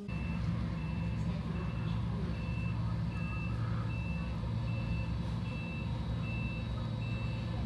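An airport ground vehicle's reversing alarm beeps steadily, about three beeps every two seconds, over the steady low hum of its engine.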